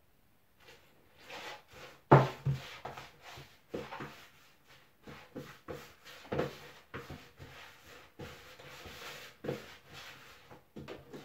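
Hands mixing and kneading dumpling dough of flour and cornmeal in a bowl on a kitchen counter: irregular knocks and clatters with rubbing in between, the loudest knock about two seconds in.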